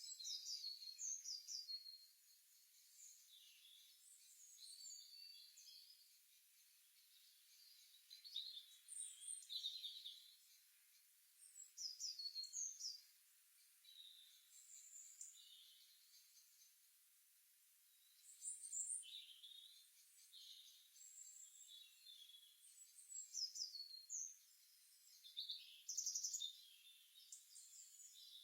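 Songbirds chirping in the early morning: short, high-pitched chirps and trilled phrases that come in clusters every few seconds.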